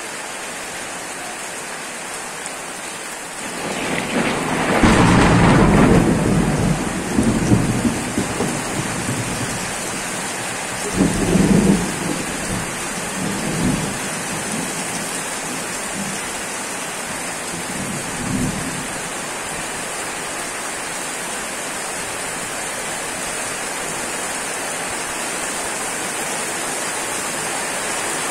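Heavy rain falling steadily on a wet paved street. A long rumble of thunder builds about four seconds in and rolls on for several seconds, followed by a second roll a few seconds later and fainter ones after it.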